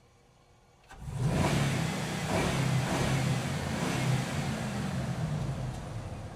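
Large truck driving, its engine pulling and revving up. It comes in suddenly about a second in, with its pitch rising and falling, and eases off near the end.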